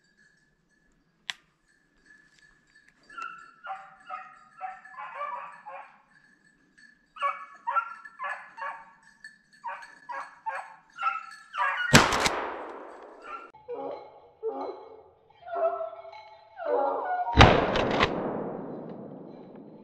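Beagles baying in short, repeated calls as they run a snowshoe hare. A 20-gauge Remington 870 pump shotgun fires one echoing shot about twelve seconds in, and the same shot is heard again about five seconds later as a replay.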